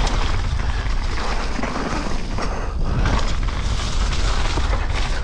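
Mountain bike running fast down a wet downhill trail, heard from a camera on the rider: wind buffeting the microphone over the noise of the tyres, with a steady clatter of knocks and rattles from the bike over the bumps.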